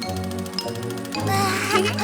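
Cheerful children's cartoon background music with bright tinkling chime notes; a sparkly shimmer joins in from about a second in.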